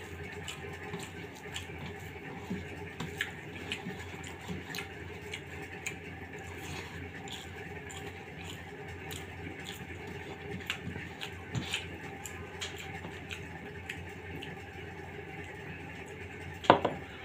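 Fingers mixing and squishing khichuri rice on a metal plate, with many small clicks and taps of fingers against the plate over a steady low hum. Near the end a single sharp clink that rings briefly, as the glass curry bowl knocks against the plate.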